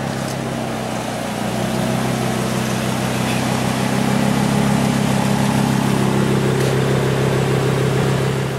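Lamborghini Huracán's 5.2-litre V10 idling steadily, a little louder from about halfway through.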